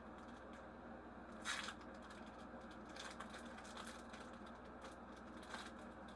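Foil Pokémon booster pack wrapper being torn open and crinkled by hand: a few brief, faint crinkles, the strongest about a second and a half in, over a low steady hum.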